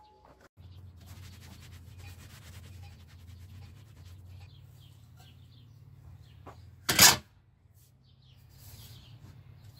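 A steady low background hum with faint scattered ticks. About seven seconds in comes one short, loud knock, which is likely the stainless steel plate being set against the boat's fibreglass transom.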